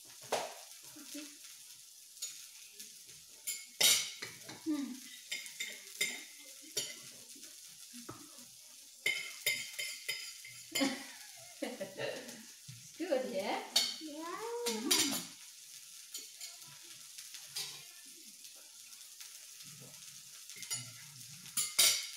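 Meat sizzling on the hot top plate of a tabletop raclette grill, a steady hiss, with repeated clicks and taps of chopsticks and cutlery against the grill and plates. A short hummed voice sounds a little over halfway through.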